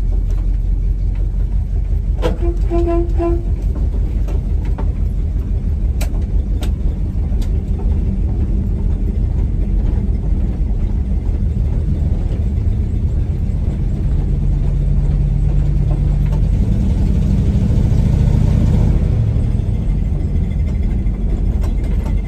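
School bus's replacement V8 engine running under way, heard from inside the cab as a steady deep rumble, its note climbing and getting louder for several seconds near the end as it pulls. The engine is misfiring, running on only five of its eight cylinders because of three bad injectors. A short beep sounds about two seconds in.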